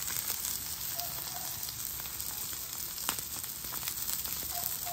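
Chuck eye steaks sizzling on a hot flat-top griddle, a steady crackling fry.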